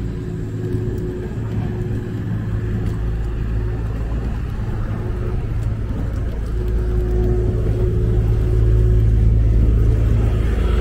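Rickshaw wheels rolling on asphalt: a steady low rumble that grows louder over the last few seconds.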